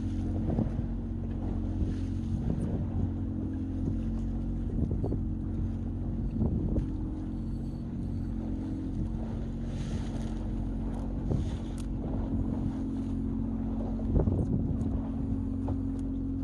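Fishing boat's engine running with a steady low hum, with a few scattered knocks and clicks and some wind on the microphone.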